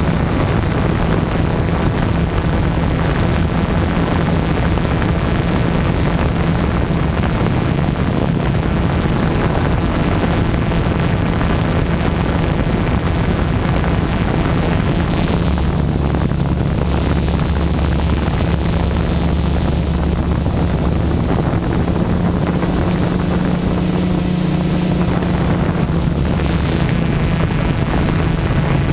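Multirotor drone propellers heard from the aircraft itself: a steady hum with a rushing, wind-like noise over it. The pitch of the hum shifts slightly a few times as the drone moves.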